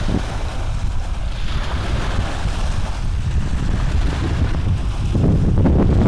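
Rumbling, rustling handling noise on the microphone as the cross-stitch cloth is held and shifted by hand, growing louder about five seconds in.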